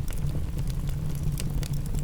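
Wood fire crackling, with a few sharp pops over a steady low rumble.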